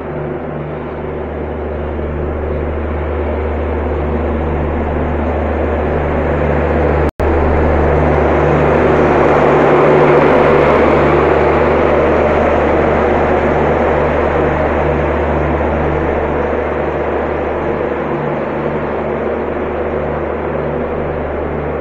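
Indian Railways express train passing: a steady low hum under a rush of wheel and rail noise that builds to its loudest about ten seconds in, then slowly fades. The sound drops out for an instant about seven seconds in.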